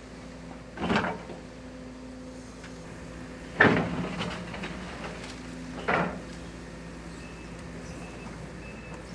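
Link-Belt 250 X4 tracked excavator's diesel engine running with a steady hum, broken by three loud crashes of its steel bucket striking and scraping rubble: about a second in, the loudest a little past midway, and one more about six seconds in.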